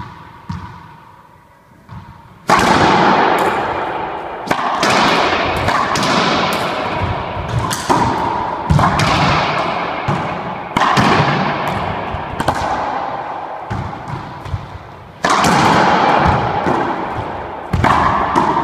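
Racquetball rally in an enclosed court: a few soft ball bounces, then from about two and a half seconds in a string of sharp racquet hits and ball impacts off the walls and floor, each followed by a long echo.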